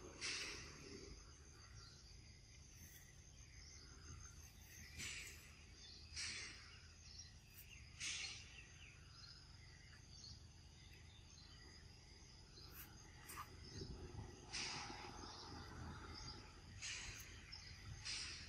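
Faint outdoor ambience: a steady high-pitched insect drone, broken every few seconds by a short chirping call.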